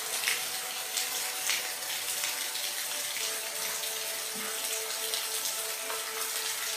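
Steady rain falling, an even hiss with scattered louder drop splashes, over faint steady low tones.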